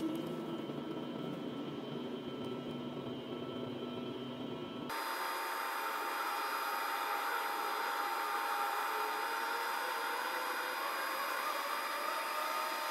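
SLJ900/32 bridge girder erecting machine running as it travels forward with a box girder, heard as a steady whirring drone with several steady high tones. About five seconds in the sound changes suddenly, losing its low rumble and turning thinner and brighter.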